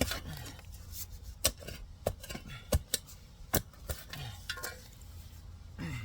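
Shovel digging into dirt and roots: irregular scraping with a string of sharp knocks as the blade strikes the ground and roots.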